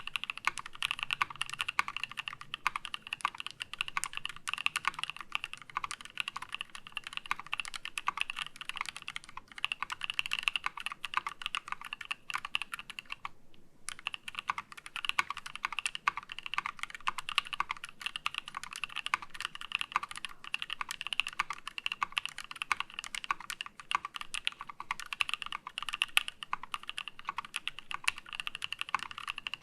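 Continuous fast typing on a KEY65 mechanical keyboard with a titanium plate, lubed NK Cream linear switches and CRP Desko keycaps. The keystrokes are dense and even, with one brief pause about halfway through.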